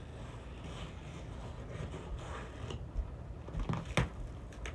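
Cardboard shipping box being opened by hand: faint scraping and rustling, then a few sharp crackles of cardboard and tape near the end as the flaps are pulled apart.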